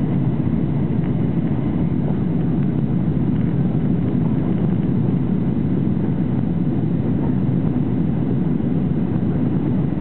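Steady cabin noise inside a Boeing 737-800 airliner: the hum of its CFM56 engines and the rush of air over the fuselage, even and unchanging, as the jet descends on approach.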